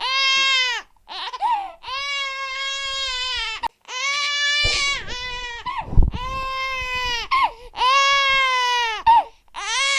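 Infant crying hard: a string of long, steady wails, each lasting one to two seconds, with short breaks for breath between them. A low thump comes about six seconds in.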